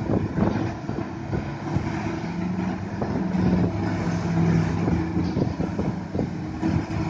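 Komatsu crawler excavator running and digging: a steady diesel engine hum, a low tone held for a few seconds in the middle, and scattered knocks as the bucket works the soil and rock.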